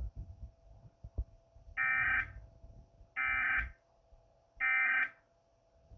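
Emergency Alert System end-of-message signal: three short, identical buzzing data bursts, evenly spaced about a second and a half apart, marking the close of the alert.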